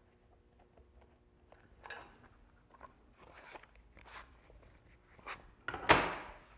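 A stack of paper being slid out of a plywood cutting jig on a scroll saw table: soft rustling and scraping, ending in a louder swish of paper about six seconds in.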